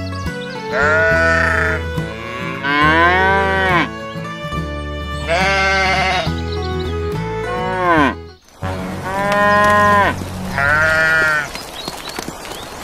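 Sheep bleating, a series of about six wavering bleats over soft background music. A little past the middle a steady rain-like hiss comes in, with two more bleats over it.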